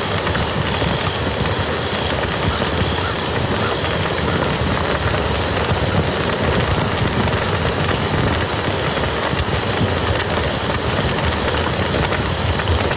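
Campfire crackling over the steady rush of a flowing river, a constant even wash of noise with small pops scattered through it.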